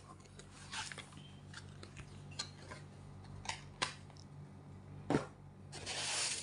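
Packaging being handled: a cardboard tray of bottles lifted out of a shipping box and foam packing blocks moved, giving scattered light clicks and knocks. A louder knock comes about five seconds in, followed by a longer rustling scrape near the end.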